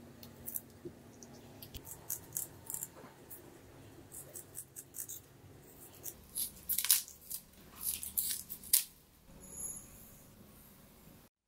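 Stainless kitchen scissors snipping through the fins and body of a half-dried pollock, a run of crisp cuts that grows louder and closer together in the second half. Near the end, a soft hiss of sugar pouring from a measuring spoon into a small glass bowl.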